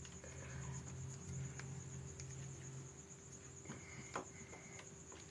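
Crickets trilling steadily in the background over a low hum, with a brief high tone and a sharp click about four seconds in.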